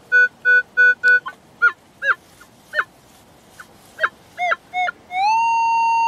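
Minelab metal detector sounding off over a buried metal target: a run of short beeps at about four a second, then a string of brief swooping chirps as the coil passes over it, and about five seconds in a tone that rises and then holds steady.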